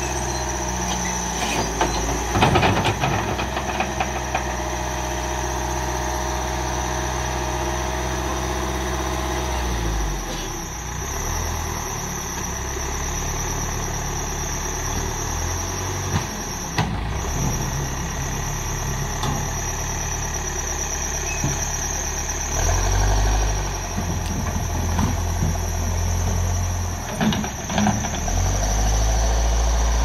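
Escorts backhoe loader's diesel engine running under load. For the first ten seconds a steady whine sits over the engine; later the engine surges louder several times, near the end.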